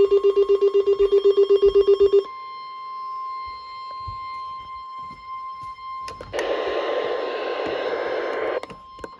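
A rapid electronic alarm beeping, about nine beeps a second, from a weather alert radio, over the steady 1050 Hz NOAA Weather Radio warning tone that signals a new alert. The beeping stops a little over two seconds in and the tone carries on alone. A burst of hiss joins it for a couple of seconds near the end.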